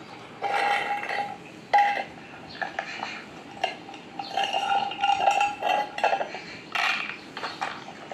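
Metal food bowl clinking and ringing in short, irregular bursts as cats eat from it, with the sharpest clink about two seconds in.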